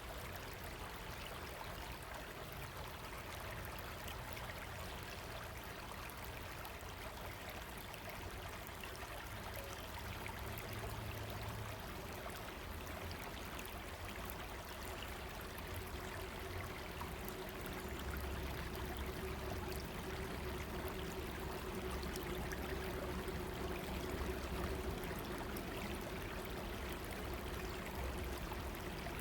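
River running steadily, an even rushing of water, with a low rumble that swells now and then.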